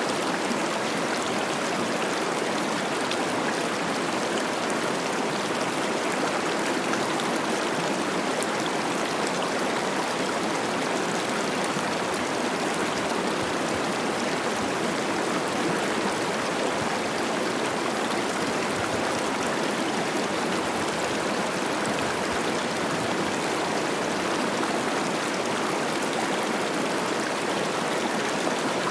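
Cache la Poudre River running high with spring snowmelt: a steady rush of water flowing and burbling over rocks, unchanging throughout.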